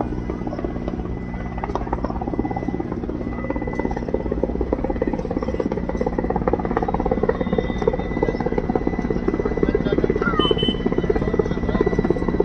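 Indian Air Force helicopter flying overhead: rapid steady thudding of the rotor blades over a low engine drone, growing a little louder in the second half.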